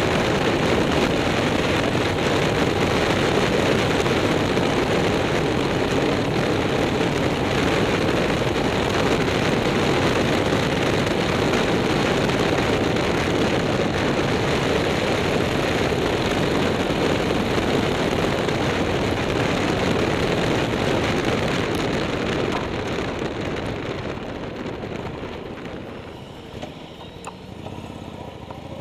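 Steady wind rush and engine noise from a motorcycle riding uphill at speed, heard from an onboard camera. Near the end the noise falls away as the bike slows into a bend, and the engine's pitch starts rising again.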